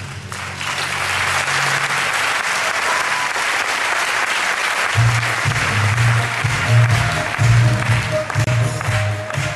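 Audience applauding, the clapping cutting in abruptly at the start and holding steady. About halfway through, music with a steady bass beat comes in under the applause.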